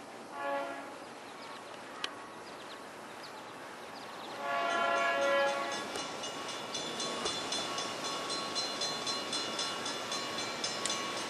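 Air horn of an approaching EMD FL9 locomotive: a brief toot about half a second in, then a longer, louder blast at about four and a half seconds. A bell then rings steadily, about two to three strokes a second.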